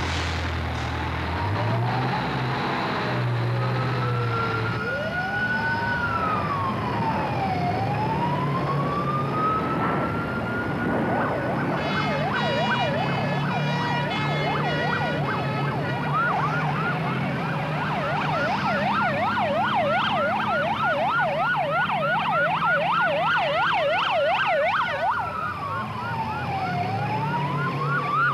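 Sirens of several airport crash fire tenders sounding together over their engines. Slow rising and falling wails give way about halfway through to stepped tones and then a fast warble, about three cycles a second, for around ten seconds, before a slow wail returns near the end.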